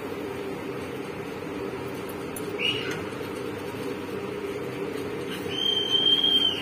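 A steady low hum runs throughout, with two high, thin whines over it: a short one about two and a half seconds in and a longer, louder one near the end.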